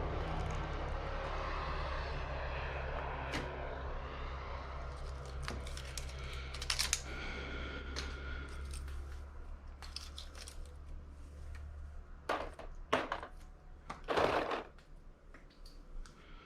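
Metal clinks and knocks from hand tools and parts while an electric motor is stripped for scrap copper, a few at first, then several sharp ones close together near the end. Under them a steady low hum runs and stops about three-quarters of the way through.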